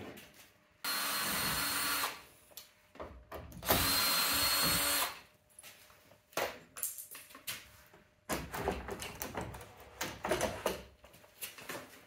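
Makita 18V cordless drill driver spinning out the fixing screws of a multi-point lock in a UPVC door edge: two runs of about a second each with a steady motor whine. A series of short clicks and knocks follows.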